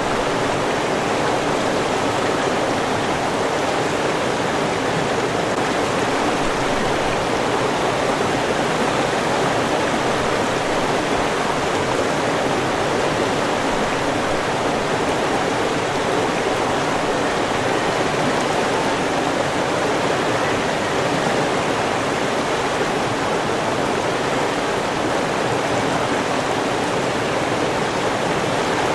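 Steady rushing of flowing river water, an even, unbroken wash of sound.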